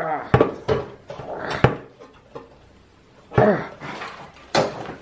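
Short strained grunts of effort from a man wrestling a stuck blower wheel off a clothes dryer motor shaft, mixed with sharp knocks and clunks from the sheet-metal blower housing and the vise grip as the assembly is shoved and lifted.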